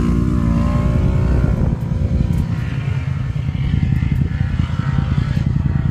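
A vehicle engine running, its steady hum fading out about two seconds in and leaving a low, fluttering rumble.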